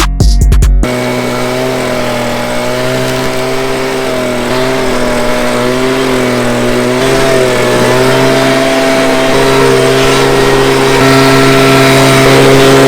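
Vehicle engine running steadily with an even, pitched hum that wavers slightly and steps up a little near the end.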